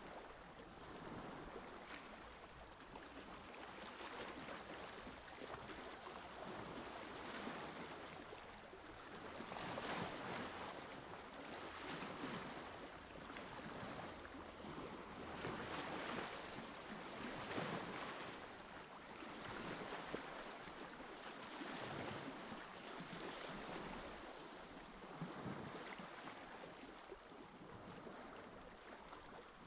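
Small sea waves washing gently onto a beach: a soft rush of water that swells and fades every couple of seconds.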